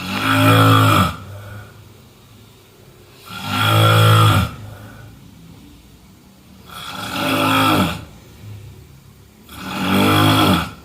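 A person snoring: four loud snores, each about a second long, coming about every three seconds.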